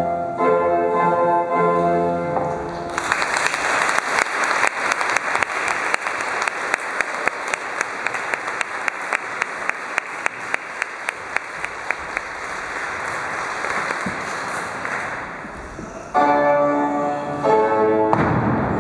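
Audience applauding for about thirteen seconds, with sharp claps standing out in a steady rhythm of about three a second. Keyboard music is heard briefly at the start, and the music resumes near the end.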